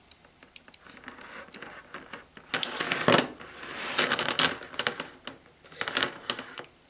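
Black telephone drop wire cable being stripped with a yellow hand stripping tool and then by hand: irregular clicks of the tool and scraping and rustling of the plastic sheath, with louder scraping spells midway through.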